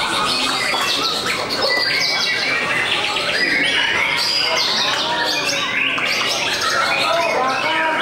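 Many caged songbirds, white-rumped shamas among them, singing at once: a dense, steady chorus of overlapping whistles, trills and chirps.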